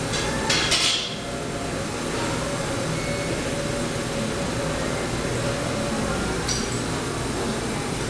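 Cafe background: a brief clatter of dishes or glassware clinking about half a second in, over a steady low rumble of room noise, with one small click later on.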